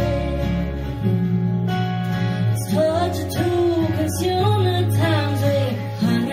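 A woman singing a slow melody to two acoustic guitars and an upright double bass, played live.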